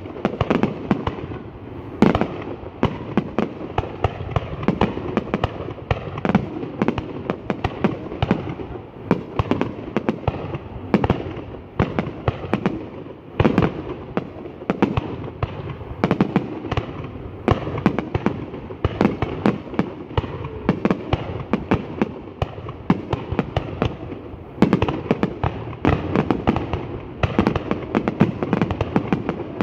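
Aerial fireworks going off in a dense, continuous barrage of sharp bangs, many each second, with a few louder booms standing out.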